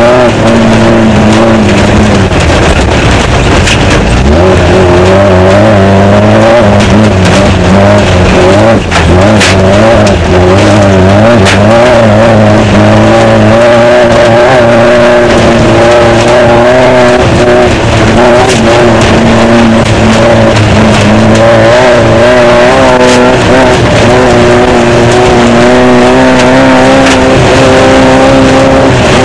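Off-road desert race car's engine heard from the onboard camera, running hard, its pitch rising and falling with the throttle over a dense rattle of the car and terrain. A few sharp knocks come through in the middle.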